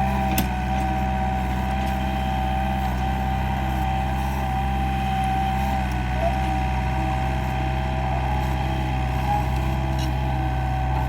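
Mini excavator engine running steadily, with a steady high whine held over it.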